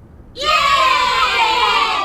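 AI-generated sound effect: a loud burst of high, wavering screams and cheers like a crowd of children. It starts about half a second in and cuts off near the end.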